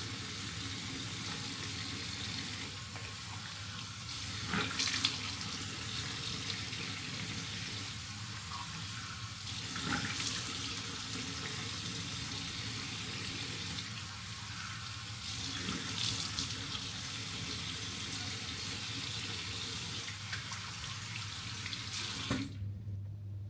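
Water running from a sink tap in a steady stream, with a few louder splashes; the flow stops abruptly near the end.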